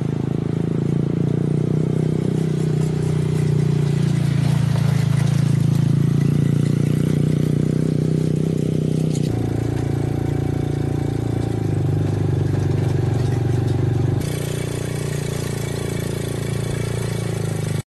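Quad bike (ATV) engine running steadily while the bike is ridden along a road. The sound changes abruptly about nine and fourteen seconds in, and cuts off suddenly just before the end.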